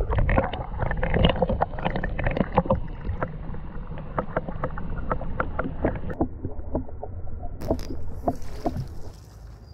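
Muffled, dull sloshing of river water heard through a submerged camera, with many short knocks as a hand moves a small jack pike about in the water. Near the end the sound turns clearer and quieter.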